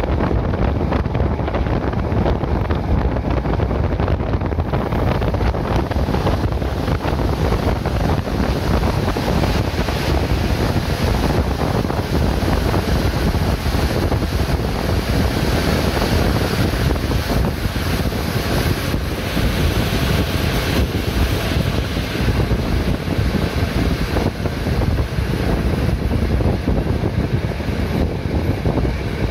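Wind buffeting the microphone at the open window of a moving passenger train, over the steady running noise of the train.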